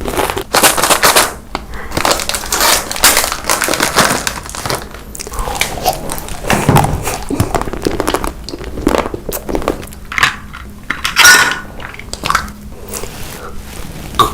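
Close-miked eating: crunchy chewing with cutlery clinking and scraping against a dish, in an irregular run of crackly clicks.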